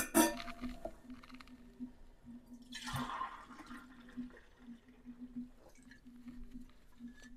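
Raw milk pouring through a canning funnel into a glass jar, gurgling with a louder swell about three seconds in. A glassy click sounds at the start, and a faint steady hum runs underneath.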